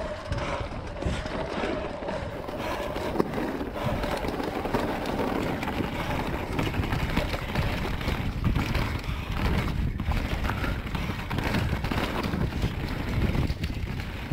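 Commencal Meta Power electric mountain bike descending a rough dirt-and-stone singletrack: tyres rolling and chattering over the ground, steady wind rush on the microphone, and small knocks and rattles from the bike. A faint whine fades out over the first few seconds.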